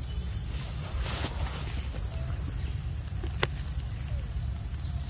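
Outdoor ambience: a steady high-pitched insect drone over a constant low rumble, with a single sharp click about three and a half seconds in.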